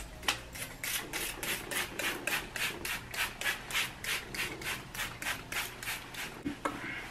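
Plastic trigger spray bottle squeezed again and again, spritzing water onto curly hair: a quick run of short hissing sprays, about three a second, stopping shortly before the end.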